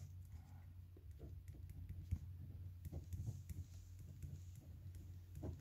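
Pen writing on paper: faint, irregular scratches and small taps of the tip against the sheet, over a low steady hum.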